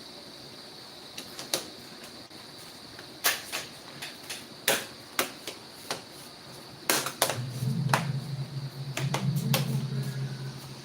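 Sharp clicks and knocks of laptop parts and tools being handled during reassembly, about a dozen, spaced irregularly. Near the end a low steady hum starts and runs on for about three seconds, with more clicks over it.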